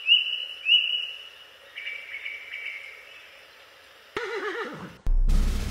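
Horse whinny sound effect: short high calls, then a wavering neigh that drops low and trails off. About five seconds in, a loud crash with a deep rumble cuts in and keeps going.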